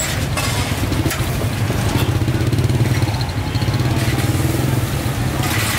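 A motorbike engine running close by, a steady low drone with a fast pulse, easing near the end, over general street noise.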